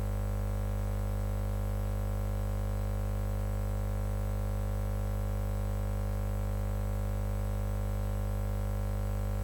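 Steady electrical mains hum: a low, unchanging buzz with a stack of even overtones, strongest at its lowest notes.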